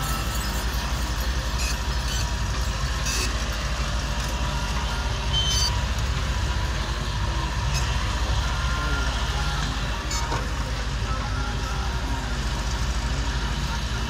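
Wheeled excavator's diesel engine running steadily under hydraulic load as it digs and swings its bucket, with a few short sharp clicks and knocks over the engine.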